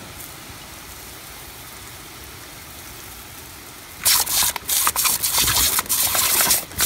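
A faint steady hiss, then about four seconds in a loud, crackling spray of water starts suddenly: a jet of water splashing against a dog's face as the dog snaps at it.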